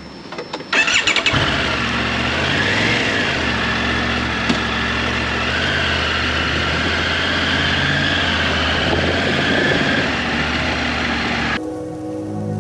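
Triumph Tiger 900 GT Pro's inline three-cylinder engine being started: a short clatter about a second in as it catches, then running steadily and loudly until it cuts off near the end, where music comes in.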